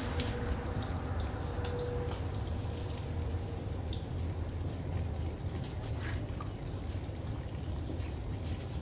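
Water trickling and dripping, with scattered small drips and clicks, over a steady low rumble.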